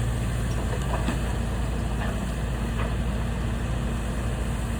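Engine of a heavy machine clearing debris, running steadily as a low rumble, with a few faint knocks.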